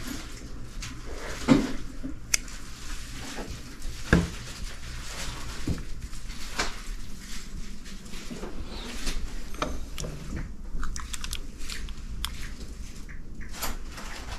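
Scattered clicks and knocks of glass figurines and pottery being handled, picked up and set back down on a table, with the sharpest knocks about one and a half and four seconds in.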